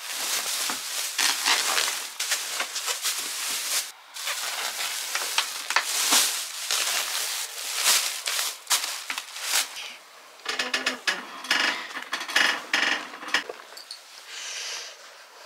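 Rustling and scraping of things being handled during cleaning and tidying, with a harsher, rasping stretch about two-thirds of the way through.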